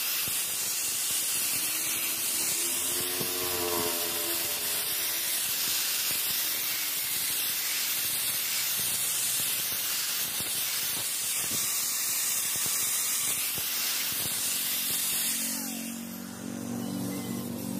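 Electric angle grinder with an abrasive disc grinding the edge of a steel knife blade: a steady, harsh hiss of disc on steel that stops near the end, leaving a low hum.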